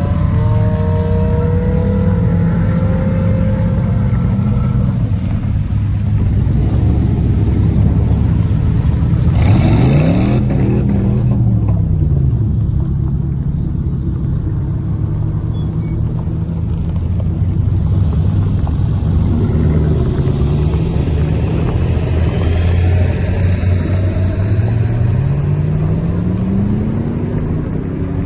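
Car engine running under load, its pitch rising and falling as it revs up and eases off: one rise and fall about ten seconds in and another climb near the end.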